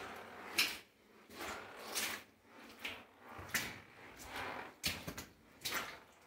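Footsteps scuffing on the loose rock floor of a mine tunnel, an uneven stroke about every half second to a second.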